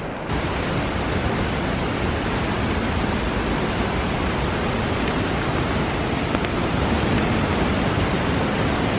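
River rapids rushing over boulders: a steady roar of white water that grows slightly louder near the end.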